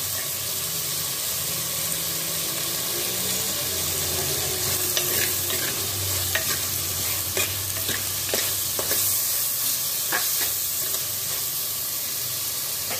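Shallots and tomato pieces sizzling in hot oil in a clay pot as a metal ladle stirs them, with a steady frying hiss and a run of sharp ladle clicks against the pot in the second half. They are being sautéed until soft as the base of a curry.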